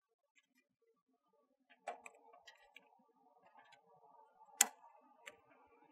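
Plastic split-core current transformer being handled and snapped shut around a cable: a click about two seconds in, light plastic handling noise, then a sharp snap a little after four and a half seconds as the clamp latches, and a smaller click soon after.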